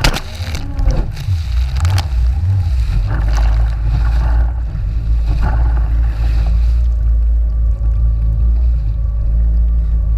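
Jet ski engine running steadily with a low drone, with water slapping and spraying against the hull several times in the first half, then smoother running.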